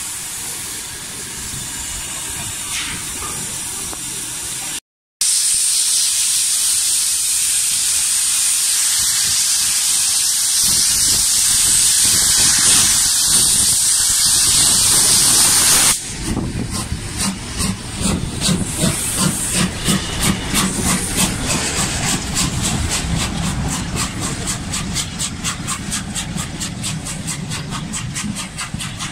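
LMS Jubilee class steam locomotive 45596 Bahamas hissing loudly as steam billows over the platform. The hiss stops abruptly about halfway through. Then the locomotive's exhaust beats start up and quicken as it pulls away with its train.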